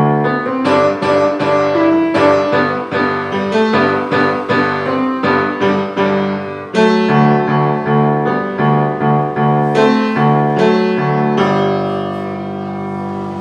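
Grand piano played solo: a run of struck notes and chords over a repeated bass, closing about eleven and a half seconds in on a final chord that is held and slowly dies away.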